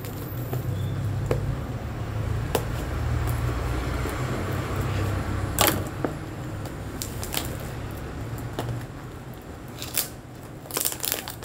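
Sharp clicks, snaps and crackles of a parcel being handled and torn open, loudest about 5.5 s in and as a quick cluster near the end, over a low rumble that swells and fades over several seconds.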